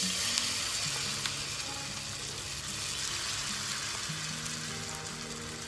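Millet batter sizzling in hot ghee in a nonstick frying pan as it is spooned in: a steady, loud sizzle that eases slightly over the few seconds.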